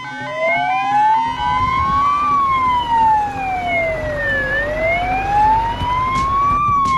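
Fire truck siren wailing, its pitch rising slowly for about two seconds, then falling for about two, over and over. A low rumble runs underneath from about a second in.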